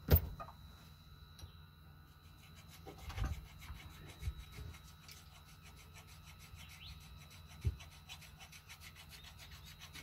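Hand scraping and rubbing on a Yanmar marine diesel's thermostat housing, cleaning old gasket gunge off the seat, in quick even strokes. A sharp tool knock comes right at the start and a few lighter knocks follow.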